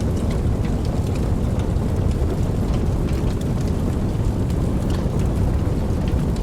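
Steady rain: a dense, even wash of falling water with a deep rumble underneath and scattered sharp drop ticks on top.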